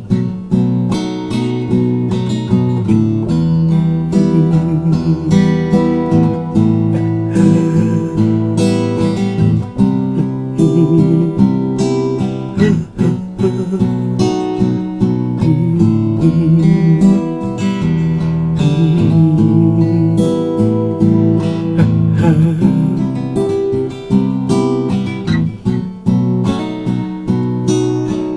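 Acoustic guitar music: chords strummed over and over in a steady rhythm.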